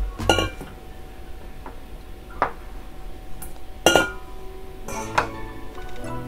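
A few sharp clinks and knocks of kitchenware against the tabletop and glass dishes, the loudest about four seconds in as a stainless steel mixing bowl is set down.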